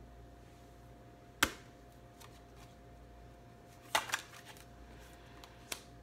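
Tarot cards being handled and laid down: a sharp snap about one and a half seconds in, a short flurry of card rustling and clicks around four seconds, and a light click near the end, over a faint steady hum.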